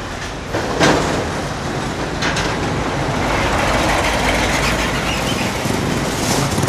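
Street traffic noise: a steady rumble of passing vehicle engines that swells over the first few seconds, with a couple of short knocks near the start.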